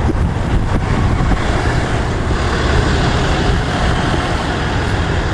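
Steady, loud rumble of a motor vehicle or road traffic, with a constant hiss over it.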